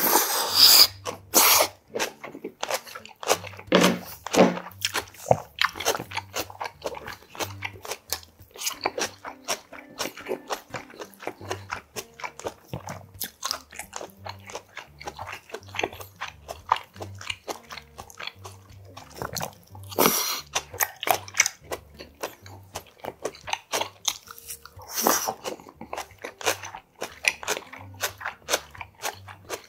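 Close-up chewing of spicy sea snail salad with shredded raw vegetables and thin somen noodles, with many small crunching clicks. There are loud noodle slurps at the start, about twenty seconds in, and again about five seconds later.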